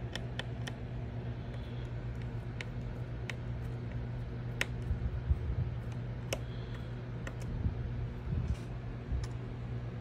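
Irregular light clicks and taps of fingers handling the opened laptop's internal plastic and metal parts around the cooling fan, with a few duller knocks, over a steady low hum.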